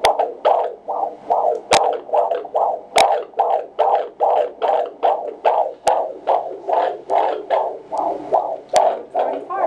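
Fetal Doppler monitor playing an unborn baby's heartbeat through its speaker: a steady run of rapid pulses, about two a second, near 137 beats a minute, a good fetal heartbeat. A few sharp clicks cut across it.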